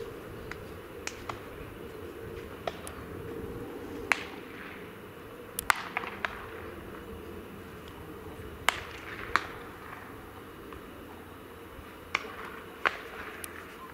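Sharp cracks of baseball ball impacts at irregular intervals, roughly a dozen, each with a short echo, over a steady low background noise around the ballpark.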